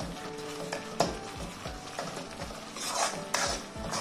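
Metal spoon stirring and scraping thick tomato purée masala around a stainless steel kadai, the masala cooked down and sizzling softly, with a couple of sharp clinks of spoon against the pan.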